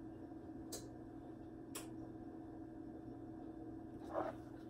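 Quiet kitchen room tone with a low steady hum, broken by two faint clicks about a second apart and a brief faint sound near the end.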